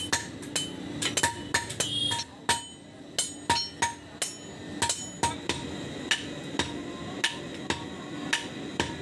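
Hand hammer forging a red-hot iron bar on a railway-rail anvil: steady blows about two a second, each a sharp metallic clank with a short ring.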